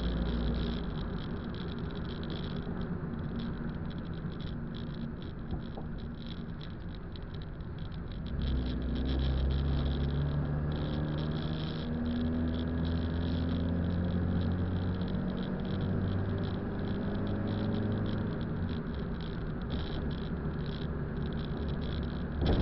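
Car engine and road noise heard from inside the cabin of a slowly moving car. The engine hum grows louder about eight seconds in, its pitch stepping up and down, and a short louder thump comes near the end.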